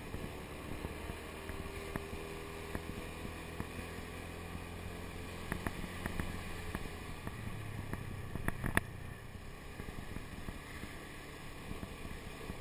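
Motor scooter engine running steadily while riding, with wind on the microphone. A few sharp knocks come through, the loudest a little under nine seconds in.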